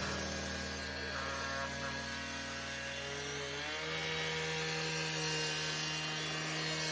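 Power saw cutting through the old concrete pool shell, running steadily and shifting pitch a little past halfway as the load changes.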